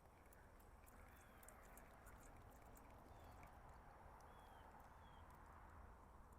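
Near silence: a faint, even rush of shallow creek water, with a handful of faint short high chirps.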